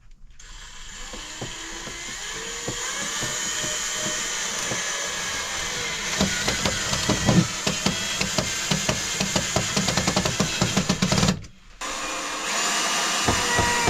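Power drill driving screws into a drawer, the motor running with its pitch rising and falling, many quick clicks over it. It stops briefly near the end, then runs again.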